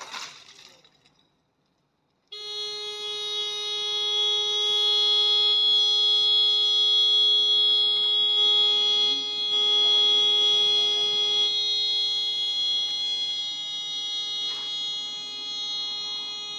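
A sudden pop that fades over about a second. After a short pause, a car horn starts sounding continuously on one unchanging tone: the horn of the burning kei car going off by itself.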